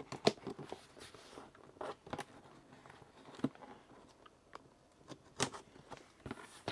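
Cardboard box being opened by hand, the tape on its top being worked loose: scattered short scrapes, taps and rustles, fairly quiet.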